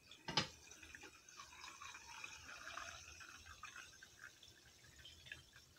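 Sparkling mineral water (Pellegrino) poured from a glass bottle into a glass mug, a splashing pour that thins out over the last couple of seconds. A single sharp click comes about half a second in, just before the stream takes hold.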